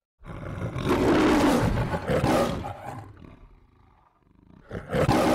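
Lion roar sound effect: a long roar that fades away over about three seconds, then a second roar beginning near the end.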